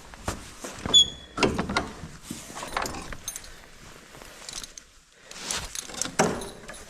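Footsteps in snow boots with irregular knocks and rustles, and a sharp ringing metal clink about a second in.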